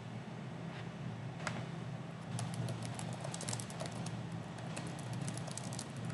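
Typing on a computer keyboard: a couple of single clicks, then a quick run of key clicks from about two seconds in, over a steady low hum.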